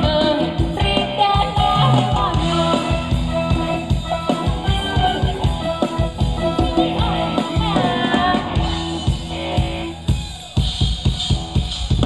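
A live band playing upbeat Thai ramwong dance music, with a drum kit keeping a steady beat under a singing voice. The music briefly drops out about two seconds before the end, then the drums come back in.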